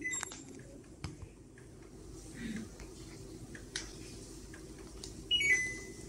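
Samsung AS05ESMN split air conditioner's indoor unit beeping as it answers the remote control: one short beep at the start, then near the end a quick run of falling electronic tones ending on a held note, the loudest sound. A sharp click about a second in, over a faint steady hum.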